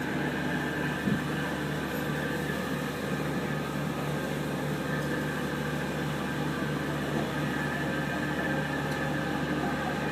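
Steady hum of a ship's onboard machinery, with several steady tones over it and a light knock about a second in.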